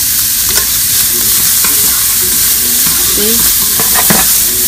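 Smoked bacon and chopped shallot sizzling loudly in a frying pan, with a few sharp knocks of a utensil stirring them.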